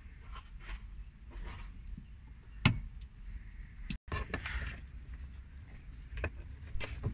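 Scattered clicks, clinks and knocks from hand tools and plastic trim being handled inside a car's stripped interior, with one louder knock about two and a half seconds in.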